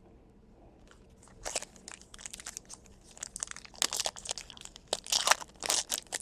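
Crinkling plastic as trading cards and their packaging are handled: sharp, irregular crackles that start about a second and a half in and grow busier and louder toward the end.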